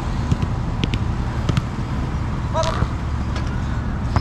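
Wind buffeting the microphone with a steady low rumble, over which soccer balls are struck with sharp thuds, the loudest near the end. A brief shouted call comes about two and a half seconds in.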